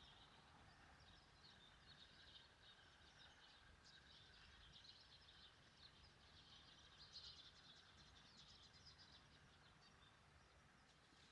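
Near silence: faint outdoor ambience with soft, rapid high chirping throughout.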